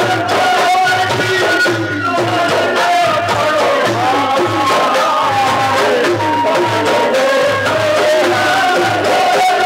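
Rajasthani Holi dhamal music: chang frame drums beating a steady rhythm about twice a second under a gliding bansuri flute melody.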